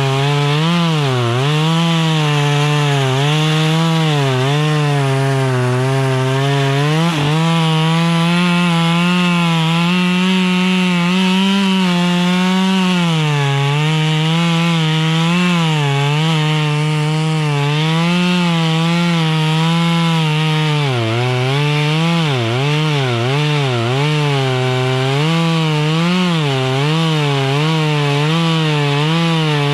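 Two-stroke chainsaw running under load, cutting wood, its engine pitch repeatedly dipping and recovering as the chain bites. The dips come faster about two-thirds of the way in.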